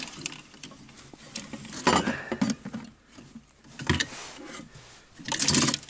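Small ice-fishing rods, reels and lures rattling and clicking against a plastic tackle box as hands rummage through it. There are scattered light clicks, with louder clattering bursts about two, four and five and a half seconds in.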